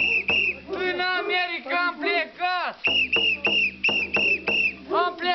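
A whistle blown in short, even blasts, about three a second, in a dance rhythm. Between the runs of blasts come quick rising-and-falling pitched calls.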